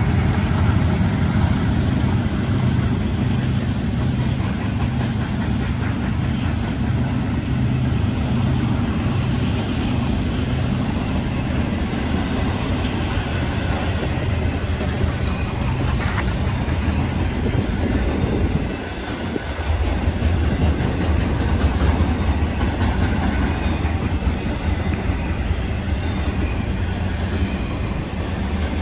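Fast BNSF intermodal train of trailers on flatcars rolling past close by, with a steady heavy rumble of wheels on rail. The drone of its diesel locomotive engines fades over the first several seconds as the locomotives pull away.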